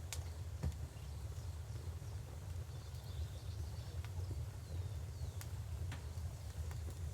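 Steady low rush of river water under the sparse snaps and pops of a crackling wood fire, with a few sharp pops, one right at the start and two more past the middle.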